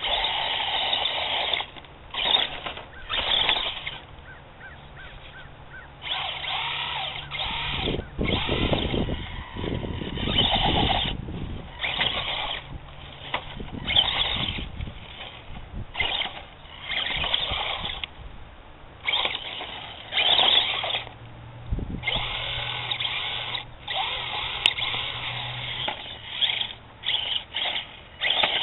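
HPI Mini Recon 1/18-scale electric RC truck's motor whining in many short bursts of throttle, starting and stopping over and over as it drives and climbs. A low rumble runs for a few seconds near the middle.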